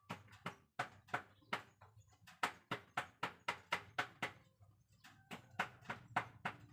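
Car cabin air filter being knocked repeatedly against a hard surface to shake out trapped dust. The taps come about three or four a second, with a short pause about four and a half seconds in before they resume.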